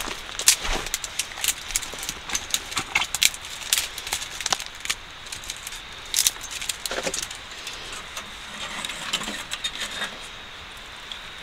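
Wood fire crackling in a small sheet-metal wood stove, sharp snaps and pops coming thick at first and thinning out in the second half.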